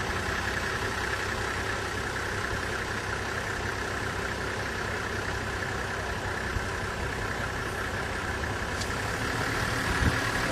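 Vehicle engine running steadily, with a single light knock near the end.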